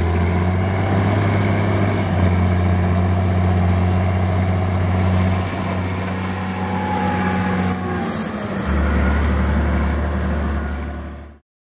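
Rába 320 tractor's John Deere PowerTech diesel engine running steadily, its note dropping lower about nine seconds in; the sound cuts off abruptly near the end.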